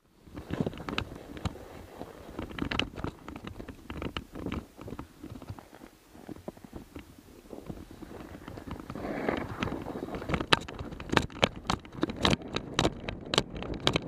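A sled sliding fast down a packed-snow trail: its underside scraping over the snow, broken by many irregular sharp knocks and clatters as it jolts over bumps. The knocks come louder and thicker in the second half of the ride.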